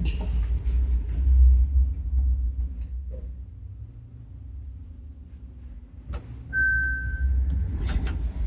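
Old Mitsubishi passenger elevator running with a low rumble; this unit is noted for making an abnormal noise. About six and a half seconds in a short single-tone beep sounds, with a few knocks around it.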